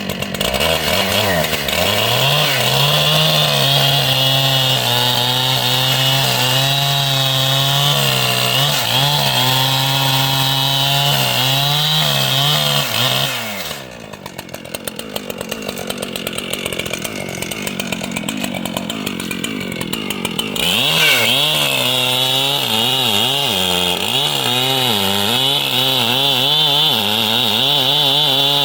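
Large chainsaw running at high revs in a cut. Roughly halfway through it drops back to lower, wavering revs for several seconds, then goes back up to full revs under load.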